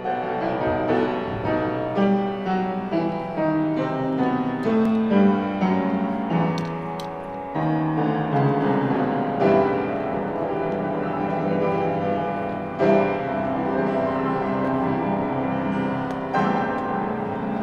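Instrumental classical music with piano, a melody of distinct notes changing every fraction of a second.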